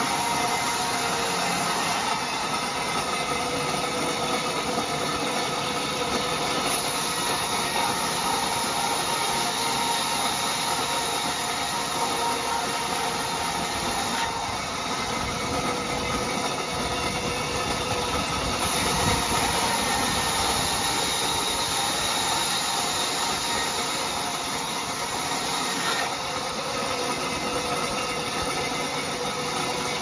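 Large sawmill band saw running and ripping a timber slab into boards: a steady whine over the hiss of the blade cutting wood, with little change from start to end.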